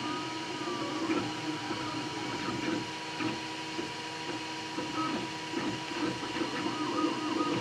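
Desktop 3D printer running a print: its stepper motors whine in short, shifting tones and pitch glides as the head and bed move, over the steady hum and hiss of its cooling fans.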